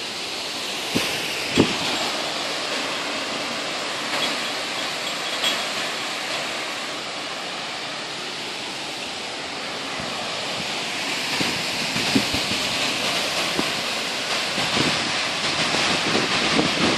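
Thunderstorm rain and wind, a steady rushing hiss that swells near the end, with scattered sharp knocks that come more often in the last few seconds.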